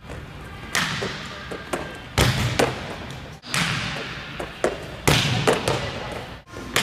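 Volleyballs being spiked and hitting the hard gym floor: a series of sharp smacks, each followed by the long echo of a large gymnasium.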